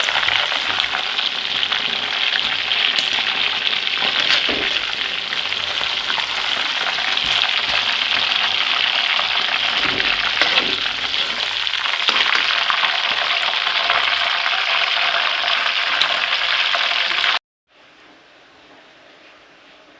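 Chicken frying in hot oil in a pan, a steady loud sizzle with scattered small crackles. The sizzle cuts off suddenly near the end, leaving only a faint hiss.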